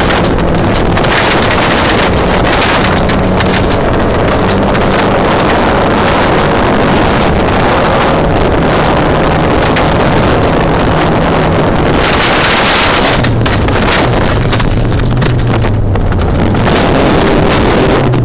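A Volvo rally car's engine pulling hard, heard from inside the cabin under loud gravel and wind noise. The engine note shifts up and down in steps as it goes through the gears, and drops lower for the last few seconds.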